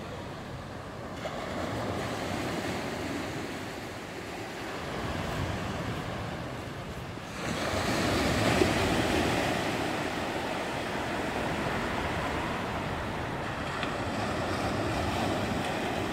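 Small waves breaking and washing onto a sandy beach, with wind on the microphone. The noise swells and eases, and gets suddenly louder about seven and a half seconds in.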